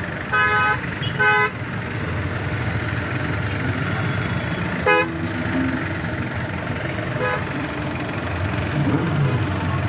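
Vehicle horns honking in slow street traffic: two short blasts in the first second and a half, another short toot about five seconds in and a fainter one near seven seconds, over a steady hum of engines and traffic.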